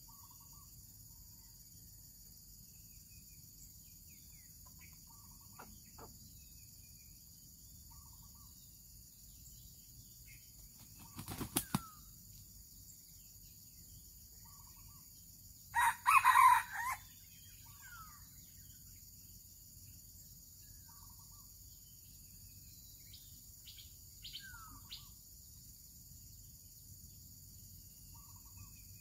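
A junglefowl rooster crows once, loud and clipped, a little past the middle, amid faint chirps of small birds. A short burst of wing flapping comes a few seconds before the crow.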